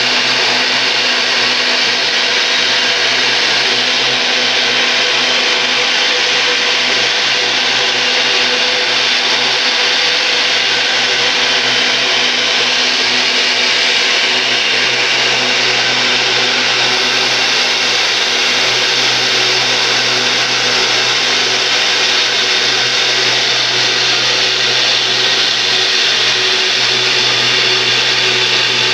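Belt grinder running with no work on it: the motor and the abrasive belt over its wheels make a steady whir with a low hum underneath, unchanging throughout.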